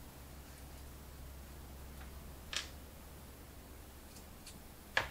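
Small carburettor parts handled at the bench: a single light click about two and a half seconds in as a tiny screw from the brass throttle shaft is set down, a couple of faint ticks, and a quick metallic rattle right at the end, over a steady low hum.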